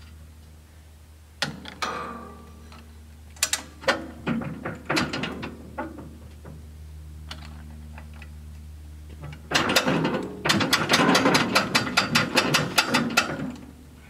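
A metal ratchet on the sawmill clicking, over a steady low hum. A few scattered clicks come first, then near the end a quick run of about six clicks a second lasts for some three seconds.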